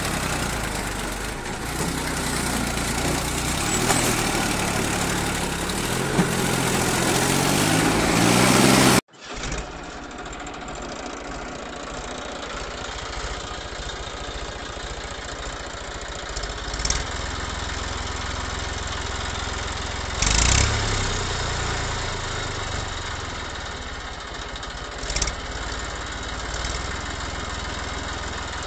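An engine running and revving, its pitch climbing in steps until it cuts off abruptly about nine seconds in. A steadier engine sound follows, with a few short knocks.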